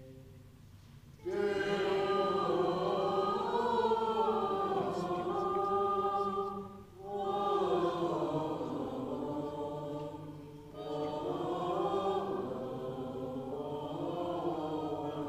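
A choir singing Latin plainchant in long phrases. The singing comes in just over a second in and pauses briefly twice along the way.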